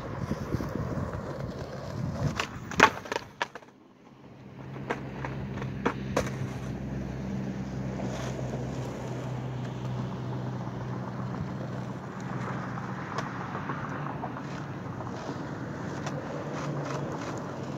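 Skateboard on asphalt: a cluster of loud, sharp clacks from the board hitting the pavement about two and a half seconds in, a few lighter clicks a few seconds later, then the wheels rolling with a steady low hum.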